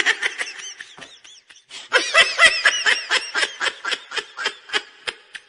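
High-pitched laughter in a rapid string of short pulses: a brief run, a short pause, then a longer run that stops shortly before the end.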